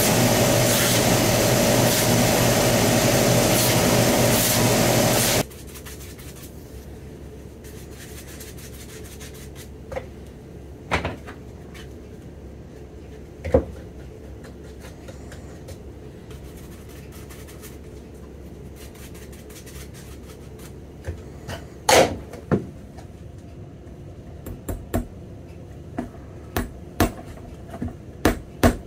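A shoe finishing machine's motor and sanding wheels run steadily, then cut off about five seconds in. Scattered single knocks follow, and then light cobbler's-hammer taps on the edge of a rubber half sole on a boot, coming more often near the end.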